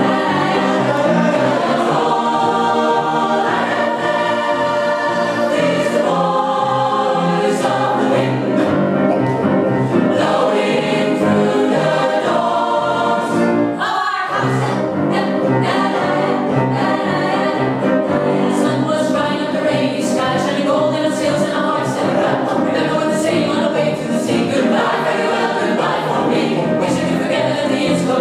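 Mixed choir of men's and women's voices singing together in parts, loud and continuous.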